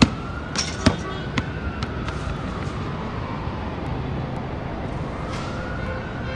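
A basketball bouncing on a hard court, the bounces coming quicker and fainter as it settles. A siren rises and falls faintly underneath.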